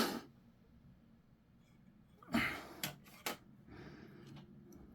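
A breath near the microphone about two and a half seconds in, then two sharp little clicks of plastic model parts being handled, and a fainter breath after them.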